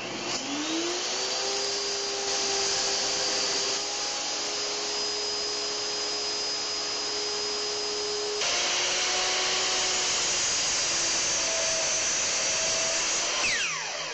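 Table saw motor starting and spinning up, running steadily while a board is ripped, then switched off and winding down near the end.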